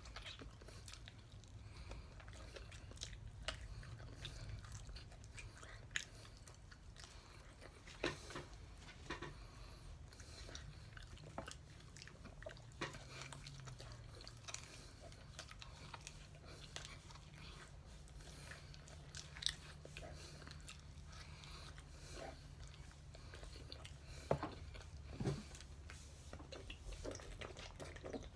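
A person chewing and biting into whole chicken wings, faint and close to the microphone, with scattered short crunches and clicks.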